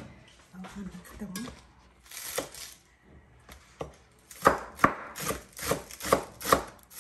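Chef's knife chopping green onions on a cutting board: sharp, even strokes about two and a half a second, starting a little over four seconds in. Before that, a few quieter knocks of handling on the counter.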